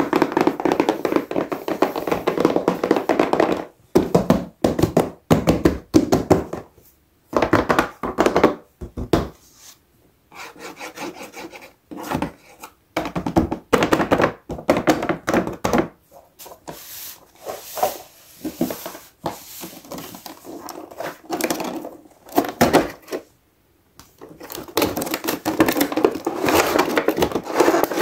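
Hands handling a cardboard toy box with a clear plastic window: rubbing, tapping and pressing on the plastic and cardboard in short irregular bouts with brief pauses between them. A longer continuous stretch of handling comes near the end.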